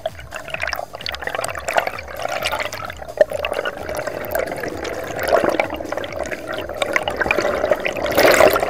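Underwater water noise: rushing and bubbling around the camera as the diver moves through the water, swelling to a loud burst of bubbles near the end.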